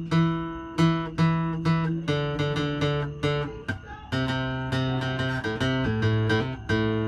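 A guitar played by hand: picked notes and chords about two a second, a short break about four seconds in, then a change to lower bass notes with busier picking.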